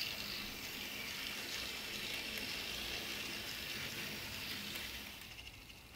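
Bachmann HO-scale John Bull model train running on its track past the microphone: a steady rattling hiss of small wheels and gearing with a faint motor hum underneath. It starts suddenly and fades about five seconds in as the train moves away.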